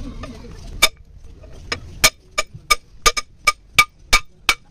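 Hammer blows on a wooden drift set through a cylinder bore of an Isuzu 4JB1 diesel engine block, each strike with a metallic ring. Two single strikes come first, then from about two seconds in a steady run of about three strikes a second.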